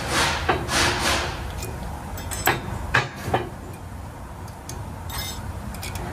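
Metal brake pad hardware clips scraped and clinked against the rear caliper bracket of a Ram ProMaster 2500 as they are changed: a few scrapes, then three sharp metallic clicks close together about two and a half to three and a half seconds in, and a few faint ticks later.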